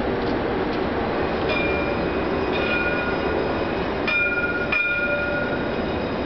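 Paris T3 tram approaching along its tracks over a steady hum of city traffic, with several short high ringing tones, the clearest two starting sharply about four and five seconds in.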